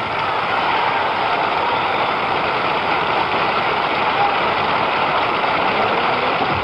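Audience applauding steadily after a tap dance number.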